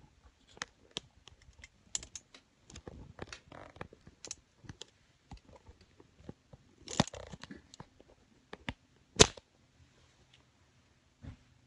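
Irregular crackling, clicking and rustling close to the microphone, with two louder knocks about seven and nine seconds in: a phone being handled and rubbed against a fleece blanket.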